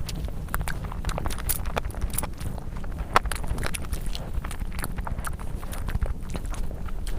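Close-miked eating sounds: chewing with irregular wet clicks and smacks of the mouth, over a steady low rumble.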